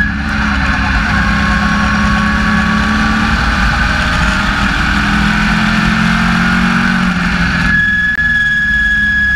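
SK Lite Modified race car's engine running at speed, heard from inside the cockpit, with a steady high whine over it. Near the end the engine's rush drops off, leaving the whine.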